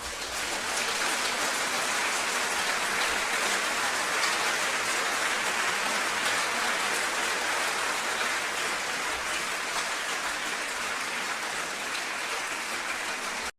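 A crowd applauding: steady, dense clapping that cuts off suddenly at the end.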